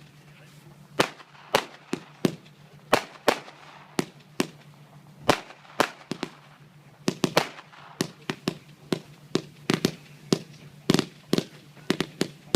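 Fireworks going off: a string of sharp bangs at irregular spacing, a few a second, coming thicker in clusters toward the end.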